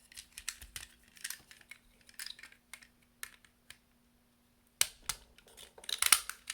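Hard plastic toy parts clicking and clacking as the pieces of a take-apart robot train are handled and pushed together to snap in place, with a louder cluster of clicks about five to six seconds in.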